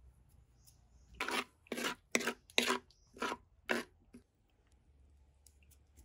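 A spatula scraping and stirring spice powder in a clay pot: six quick scraping strokes, about two a second, starting a little over a second in and stopping about four seconds in.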